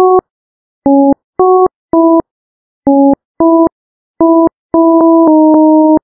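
Mobile-phone ringtone: a short electronic melody of clean beeping chords, about eight quick notes in an uneven rhythm, ending on a longer held note.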